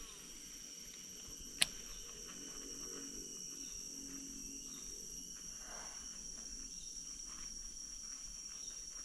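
Faint, steady, high-pitched drone of insects, with one sharp click about a second and a half in.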